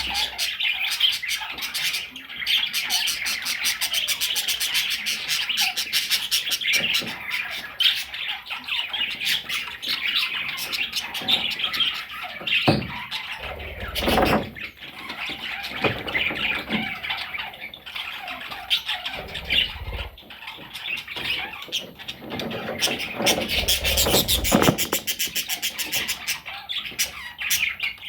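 Budgerigars chattering and chirping continuously in a fast, busy warble, with a few soft thumps about halfway through and again near the end.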